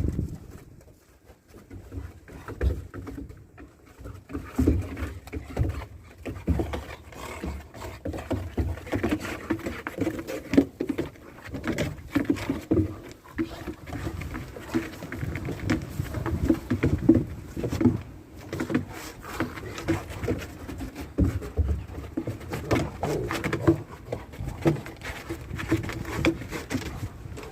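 Great Pyrenees dogs playing in snow: a dense, irregular run of short animal noises and scuffles that goes on throughout.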